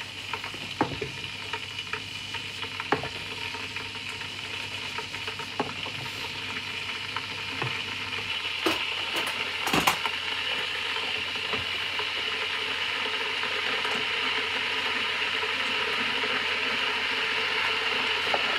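Food sizzling and simmering in a lidded pan on a gas hob, a steady hiss that slowly grows louder. A few light knocks and clinks of kitchenware come through the first half.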